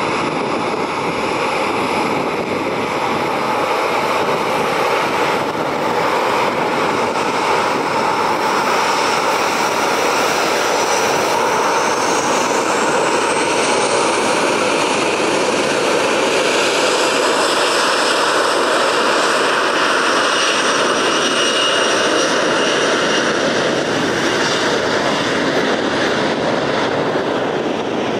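Turbofan engines of a Boeing 737 cargo jet running on the runway: a steady jet roar with a high whine that rises in pitch about halfway through as the engines spool up for its departure.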